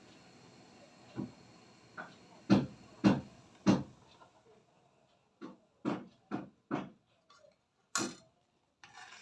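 Kitchen utensils knocking on a hard surface during food preparation: about a dozen separate knocks, irregularly spaced, with a sharper, brighter clink about eight seconds in.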